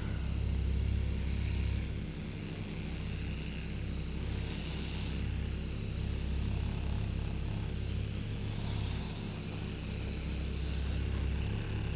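Electric vibration massager with a heated head running on the muscles: a steady low motor hum and buzz, its loudness shifting a little as it is moved.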